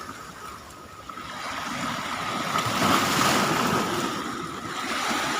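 Strong sea waves surging and breaking against the shore at high tide, the wash swelling to its loudest about three seconds in.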